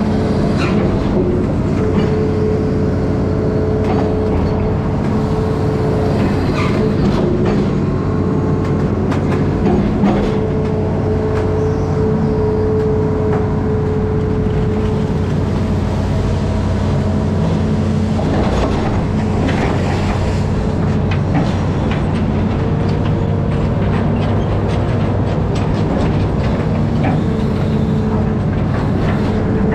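Amphibious excavator's diesel engine running steadily, with scattered clanks and knocks from the working machine.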